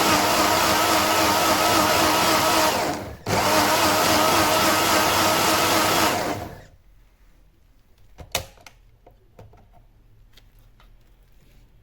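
Electric blender running at full speed on ginger and lemon, cut off for an instant about three seconds in and restarted, then switched off and spinning down a little past halfway. A few light clicks and a sharp knock follow.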